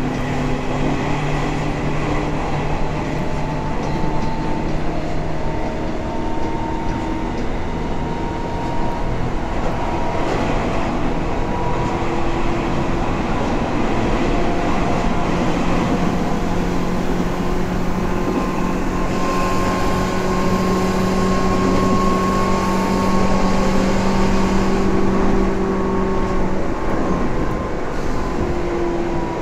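Tobu 9000 series electric commuter train running at speed, heard from inside the car: a steady rumble of wheels on rail under motor and gear whine whose pitch shifts slowly. It grows a little louder over the middle of the stretch, then eases off near the end.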